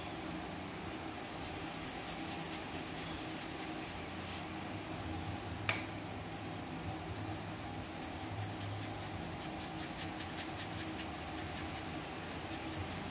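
Paintbrush strokes on corrugated cardboard: a soft, rapid scratching in runs of quick strokes, over a steady background hum. A single sharp click a little before the middle.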